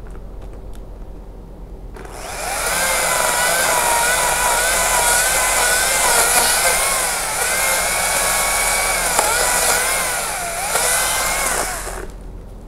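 Makita top-handle battery chainsaw running and cutting persimmon wood. It starts about two seconds in, runs for about ten seconds as a steady whine whose pitch dips a few times under load, and stops shortly before the end.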